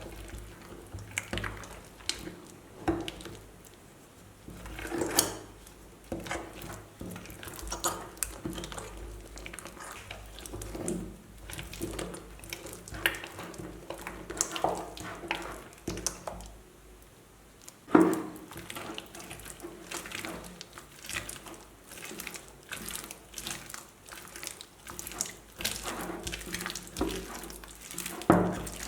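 Crunchy slime being worked by hand: wet squelches and crackling clicks at irregular intervals, the loudest about 18 seconds in.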